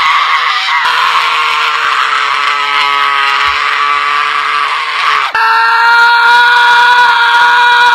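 A man screaming at the top of his voice in long, steady, high-pitched screams. One scream breaks off about five seconds in and the next begins straight away.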